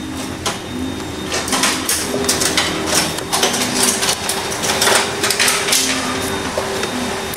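Close-up handling of a copier developing unit: fingers pressing and working a foam seal onto its plastic toner inlet, giving an irregular run of rustles, scrapes and small clicks. A faint steady hum with a few pitched tones lies beneath.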